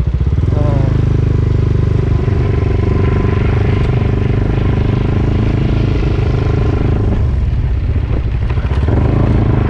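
Honda ADV350 scooter's single-cylinder engine running under way, pulling harder about half a second in, easing off around seven seconds and picking up again near the end.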